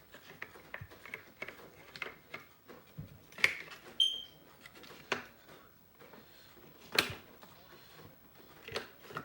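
Scattered clicks and knocks of a CVA Wolf muzzleloader's parts being handled and fitted back together during reassembly, the sharpest about three and a half and seven seconds in. There is a short high tone about four seconds in.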